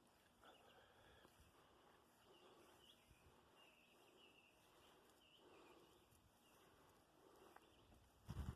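Near silence: faint outdoor quiet with scattered distant bird chirps, and a brief low bump near the end.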